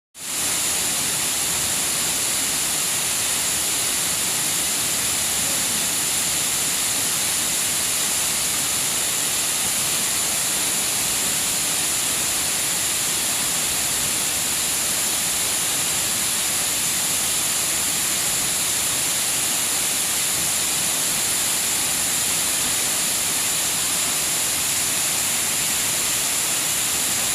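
Waterfall: falling water making a steady, unbroken hiss.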